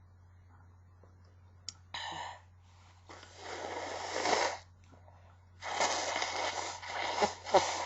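A woman's stifled sneezes: breathy, held-back bursts through the nose in three bouts, a short one about two seconds in, then two longer ones that swell and end in sharper bursts.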